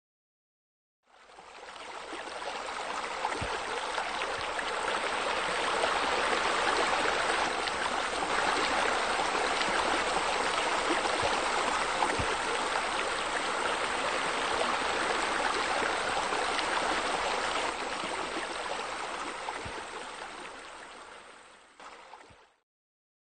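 Water running and splashing steadily, a spa spilling over into a pool. It fades in about a second in and fades out near the end.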